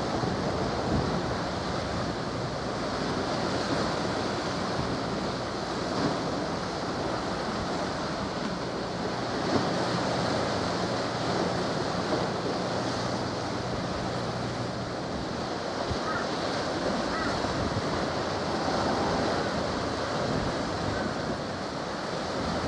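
Wind rushing over the microphone and small waves washing at the water's edge, a steady noise with a few small gusts.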